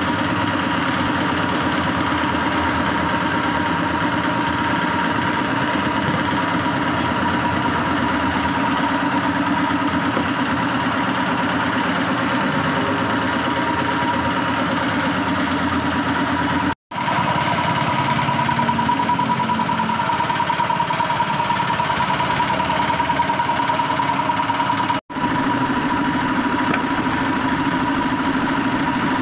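A machine motor running steadily with an even hum and a fast rattle. It drops out briefly twice, about 17 and 25 seconds in.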